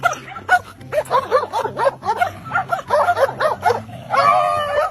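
A dog making a quick string of short yips that rise and fall in pitch, several a second, then one longer held whining call near the end.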